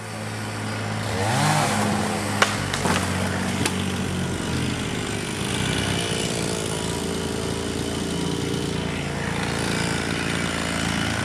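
An engine running steadily, revving up briefly about a second and a half in, with a few sharp clicks a little later.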